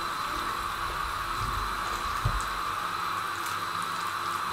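Hands squishing marinated fish pieces through thick gram-flour batter, a few soft wet squelches over a steady background hiss.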